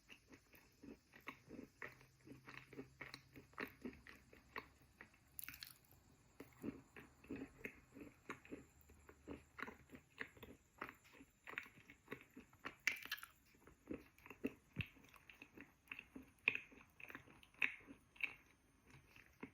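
Close-up chewing of moistened chalk: a steady run of small, soft crunches, about two to three a second. Twice there is a sharper crack.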